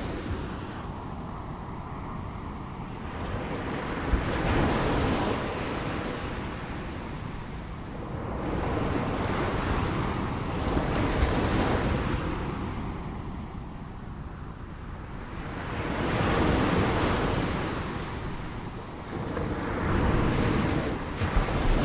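Ocean waves breaking and washing in, a steady rush that swells and ebbs every few seconds, with some wind noise on the microphone.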